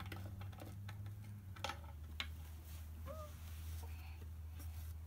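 Light, scattered clicks and taps of a screwdriver and small wooden parts being handled while screws are driven in, over a steady low hum.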